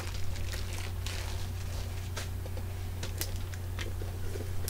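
A few faint crinkles and clicks of bubble-wrap packaging being handled, over a steady low hum.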